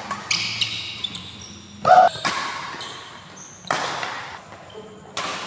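Badminton rally: four sharp racket strikes on a shuttlecock, about one every second and a half, with a brief pitched squeak or shout between the second and third.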